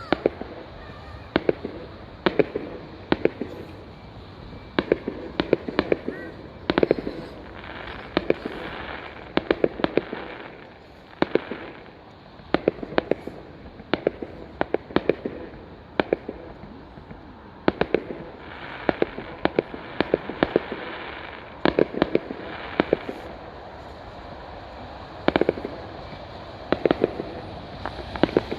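Fireworks going off in a continuous barrage: many sharp bangs and cracks, often several in quick succession, repeating all through.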